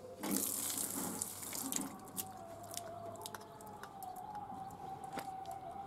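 Water splashing and sloshing in a steel bowl as small tangra fish are rinsed by hand, loudest in the first couple of seconds, followed by scattered light clicks of fish and fingers against the metal as the water is drained. A faint wavering tone runs underneath.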